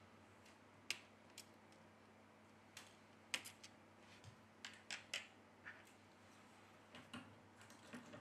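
Faint, irregular small clicks and taps of tweezers and a pry tool against a smartphone's internal parts and metal shield, about a dozen in all, the loudest about three and a half seconds in, over a faint steady hum.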